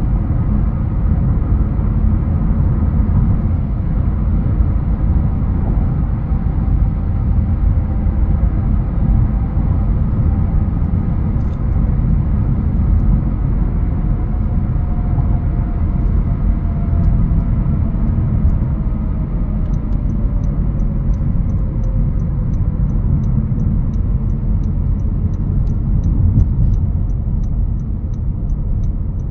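Steady low engine and road rumble from a 2021 Honda HR-V Sport AWD on the move, with a faint engine tone slowly falling in pitch through the middle. From about two-thirds of the way in, the turn-signal indicator ticks evenly, about twice a second.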